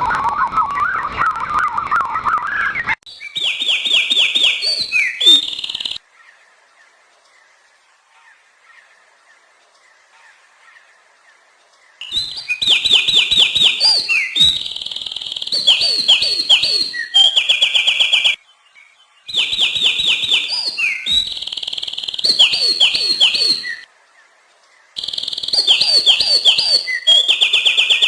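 Songbird singing: a lower warbling call for about three seconds, then repeated bursts of rapid high chirps and fast trills, each a few seconds long and starting and stopping abruptly, with a quiet stretch of about six seconds after the first burst.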